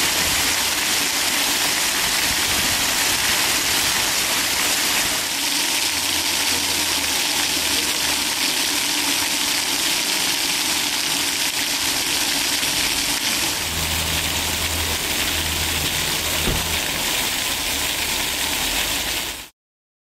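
Ground-level fountain jets gushing up through metal drain grates and splashing back down: a steady rush of splashing water, its tone shifting slightly twice. It stops abruptly just before the end.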